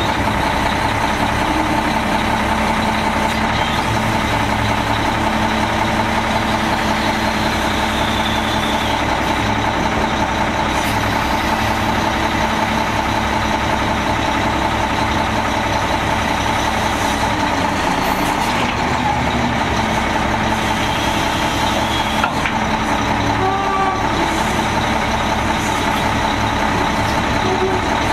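Mack E7 12-litre straight-six turbo diesel of a Mack MR690S refuse truck running steadily, with a steady high tone sounding along with it.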